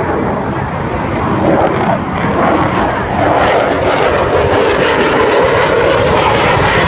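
Engine noise from a military jet making a low pass at an air show, growing steadily louder as it approaches.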